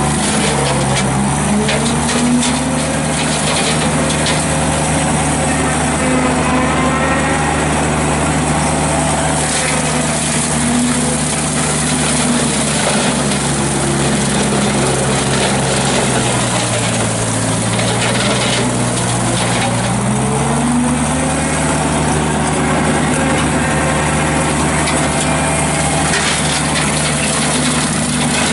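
Ditch Witch SK755 mini skid steer's engine running hard while it drives a hydraulic CID Xtreme 42-inch brush cutter through saplings, with a steady whir from the spinning mower deck. About two-thirds of the way through, the engine pitch dips under load for a few seconds and then recovers, with scattered cracks of stems being cut.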